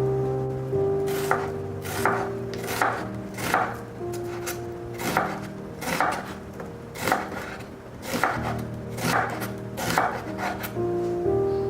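Knife chopping on a cutting board: about eleven separate strokes, roughly one a second, unevenly spaced.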